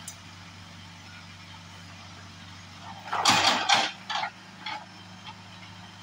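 Case backhoe loader's diesel engine running steadily while the backhoe arm works. About three seconds in comes a loud rushing burst lasting under a second, followed by two shorter, fainter ones.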